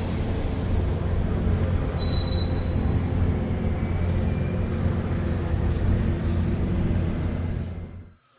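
Steady low engine rumble with a strong hum and a few faint high squeals, cut off abruptly near the end.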